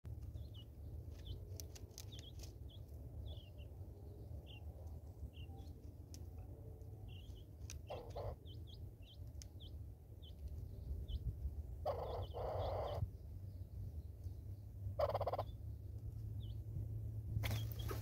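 Birds at a seed feeder, Natal spurfowl among them: a steady run of short, high chirps, a few louder harsh calls about 8, 12 and 15 seconds in, and a whir of wingbeats near the end as a red-billed hornbill takes off.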